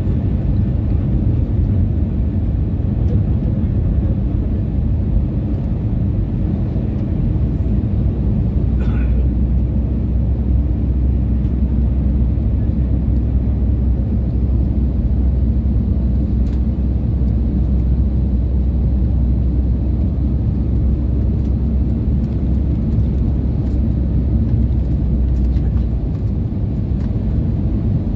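Airbus A320neo cabin noise heard from a window seat on approach: a steady low drone of engines and airflow. A deeper hum strengthens about eight seconds in and eases off a couple of seconds before the end.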